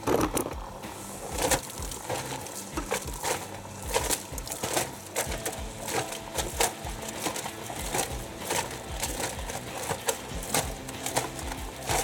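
Samsung Ecobubble front-loading washing machine tumbling wet, foamy towels with its door open: water and suds sloshing, with irregular slaps and splashes of the wet load, about one or two a second.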